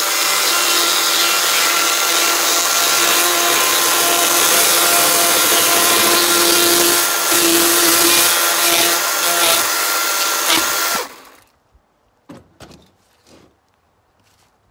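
Yardworks 48-volt battery chainsaw with a dull chain running and cutting through a dry dead limb: a steady electric motor whine with the chain rasping through the wood, which stops suddenly about eleven seconds in. A few light knocks follow as the cut piece is handled.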